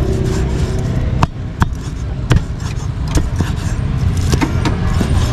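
Steel meat cleaver chopping grilled pork on a round wooden chopping block: about eight sharp, irregularly spaced chops starting about a second in, over a steady low rumble.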